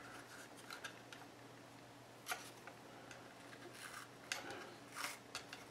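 A few faint, scattered clicks and light rattles of fingers handling the opened plastic earmuff cup and its loose speaker, over a faint steady low hum.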